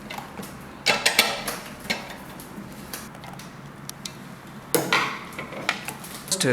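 Metal clinking and knocking as a flange heating element is handled and fitted into an electric water heater tank, in a few short clusters of clicks.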